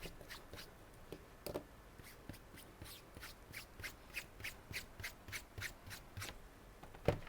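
Light clicks and rubbing from working on a laptop's bottom case, with a steady run of about four light clicks a second through the middle and a single louder knock near the end.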